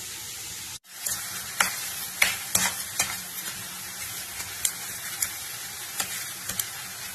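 Chopped boiled onions and sugar frying in ghee in a ceramic-coated pan, sizzling steadily while a spatula stirs them. The spatula knocks and scrapes against the pan with sharp clicks every half-second or so.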